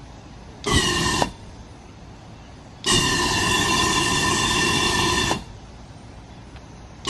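Propane jet from a DIY rocket engine fired through a solenoid valve and flashback arrestor, no oxidizer: a rushing burn with a steady whistling tone in it. There are two bursts, a short one of about half a second and then a longer one of about two and a half seconds, each starting and stopping abruptly as the valve opens and shuts. The flashback arrestor is not noticeably choking the flow.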